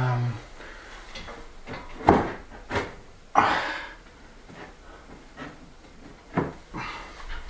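A length of pine trim being handled against the wooden ceiling and wall: a few sharp wooden knocks, the loudest about two seconds in, and a short rubbing scrape of wood on wood about three and a half seconds in.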